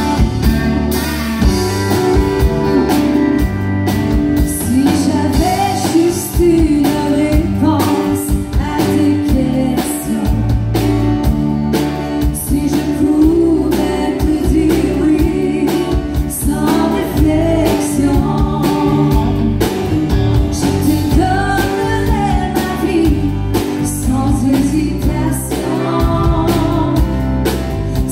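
Live country band playing a song: a woman singing over guitar and a drum kit with a steady beat.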